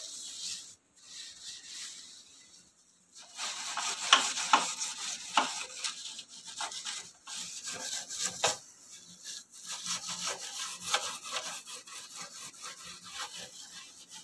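Steel wool scrubber scraping back and forth over a greasy gas stove coated in foaming kitchen cleaner, in a quick run of irregular scratchy strokes. The strokes drop out briefly near the start and again around three seconds in.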